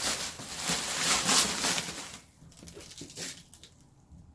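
Packaging rustling and crinkling as an item is unwrapped and pulled out, loud for about two seconds, then a few light handling clicks.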